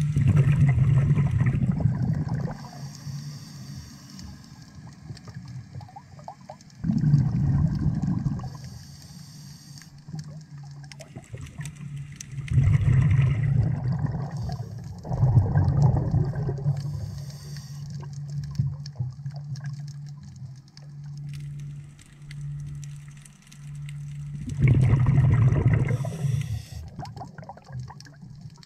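A scuba diver breathing through a regulator, heard underwater. Five exhalations bubble out in loud bursts of a second or two each, and between them come the shorter hisses of the regulator on inhalation. A low steady hum runs underneath.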